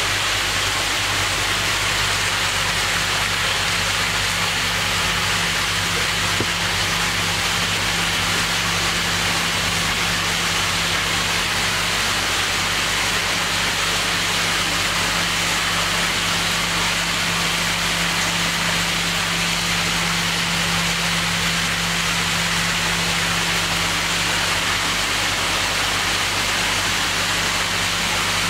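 Steady machinery hum under an even rushing noise, unchanging throughout.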